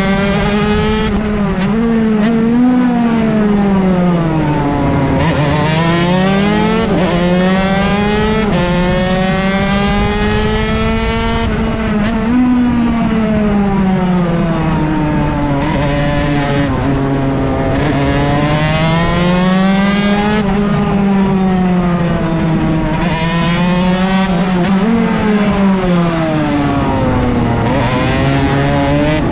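Honda MB100 two-stroke single-cylinder race engine, with a 28mm Mikuni roundslide carb and a home-made expansion pipe, running hard. Its pitch climbs and falls over and over as it is revved out, shifted and throttled off, with several sudden dips.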